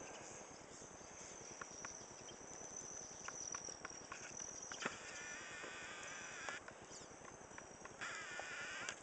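Insects trilling steadily at a high pitch, with scattered small clicks and two longer wavering calls, one about five seconds in lasting a second and a half and a shorter one near the end.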